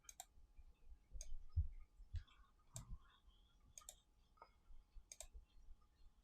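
Faint computer mouse clicks, about half a dozen single and double clicks spaced a second or so apart.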